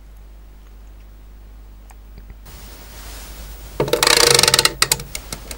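Timer dial of a MicroClean denture cleaning unit being turned: a quick burst of rapid ratcheting clicks lasting about a second, then a few scattered clicks.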